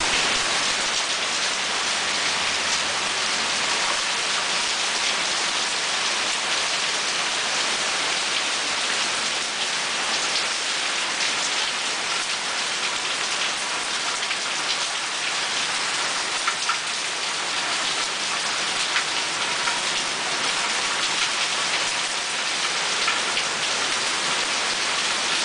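Heavy tropical-storm rain pouring down steadily, a dense hiss of drops striking hard surfaces with many small splattering ticks.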